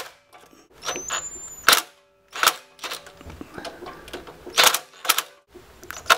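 Cordless drill-driver tightening the terminal screws in an electrical disconnect box: short runs of the motor broken by sharp clicks, about one every half second to a second, as each screw is driven down tight.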